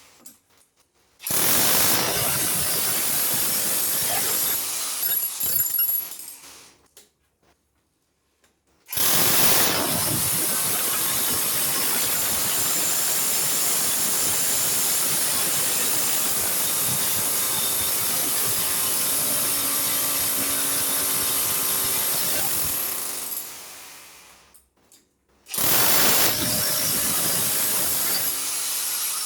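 Power drill running in three long runs, each starting suddenly; the middle run lasts about fourteen seconds and winds down gradually before stopping.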